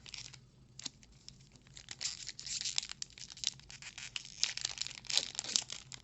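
Foil trading-card booster pack wrapper being torn open and crinkled: a few light clicks at first, then a dense run of sharp crackles from about two seconds in.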